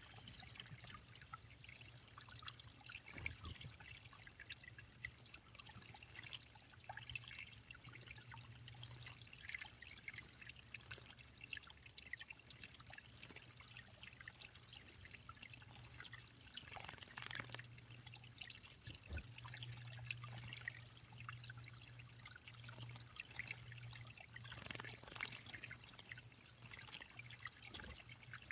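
Water trickling and dripping into a small backyard bird pond: a steady faint trickle with many small drips and a couple of slightly louder splashes.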